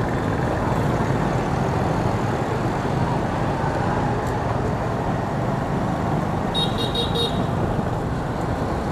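Steady road noise of a motorbike riding through dense city scooter traffic. A short vehicle horn toot, under a second long, sounds about seven seconds in.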